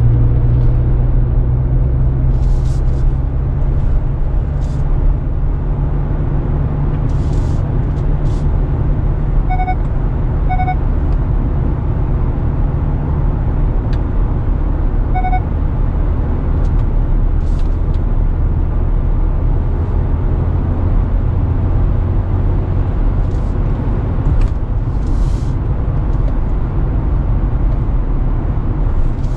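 Steady road and tyre rumble inside the cabin of a Kia Sportage NQ5 hybrid driving at road speed. Three short electronic beeps come through: two about a second apart around ten seconds in, and one more near fifteen seconds.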